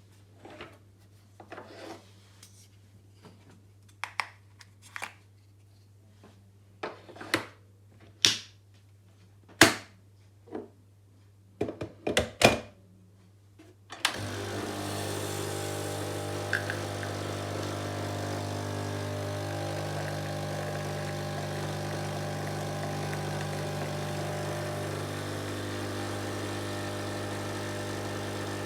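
A series of clicks and knocks, then about halfway through a Dolce Gusto coffee machine's pump starts suddenly and runs with a loud, steady hum as it brews.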